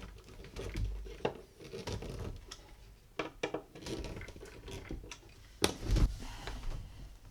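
Metal drawer pulls and screws being handled and fitted against a wooden dresser drawer: scattered light clicks, taps and small scrapes of metal on wood, with one louder knock about two-thirds of the way through.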